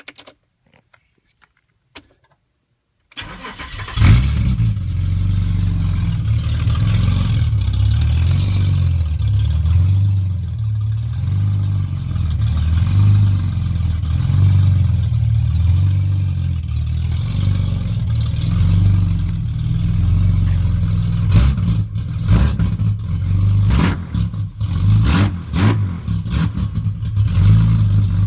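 The 1991 BMW 735i E32's 3.5-litre straight-six starting about three seconds in, then running steadily. Past the two-thirds mark the sound turns uneven, with short knocks and bumps over the engine.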